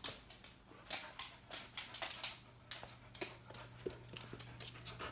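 Dog's claws clicking and pattering on a hardwood floor: light, irregular taps a few times a second, over a faint steady low hum.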